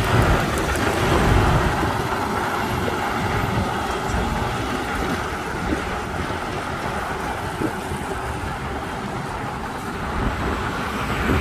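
Road traffic noise: a steady mix of car and truck engines and tyres, louder in the first couple of seconds.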